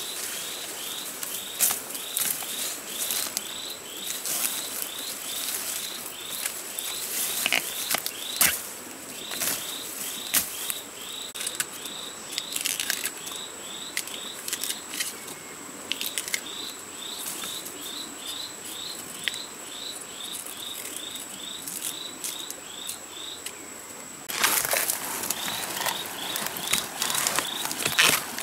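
Hands rustling through bamboo foliage, with sharp snaps and cracks as bamboo shoots are broken off and peeled. Behind this are a steady high insect whine and a regular run of short high chirps, about three a second. Near the end comes a louder, dense crunching rustle of dry bamboo leaves as hands dig at the base of a bamboo clump.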